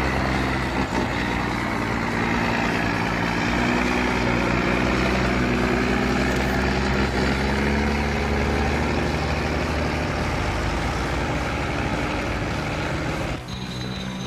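Logging truck engine running steadily with a low hum, with a sudden change to a slightly quieter engine sound about thirteen seconds in.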